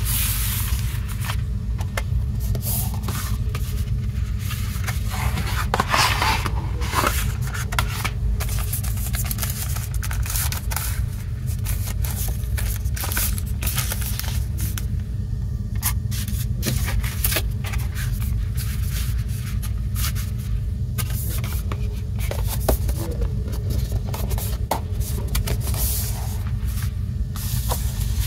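Paper and cardboard rustling, sliding and tapping as printed inserts, cardboard sleeves and a disc in its inner sleeve are handled, over a steady low hum.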